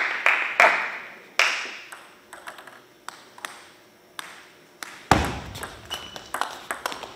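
Celluloid-free plastic table tennis ball clicking: a few bounces in the first second or so, a quieter pause, then a heavier knock about five seconds in and a quick run of clicks as the ball goes off the table and rubber paddles in a rally.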